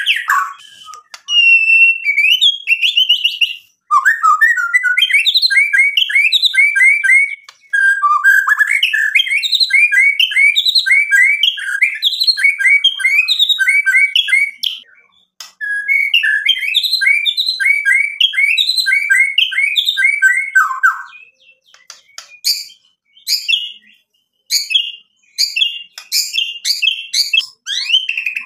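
White-rumped shama singing: long, fast runs of repeated whistled and chattering notes in several bursts with short pauses between them, then a string of sharp, clipped notes near the end.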